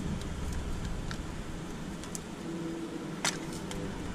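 Small plastic clicks and taps from a car side-mirror assembly being worked apart by hand with a screwdriver, the sharpest click a little over three seconds in, over a low steady rumble.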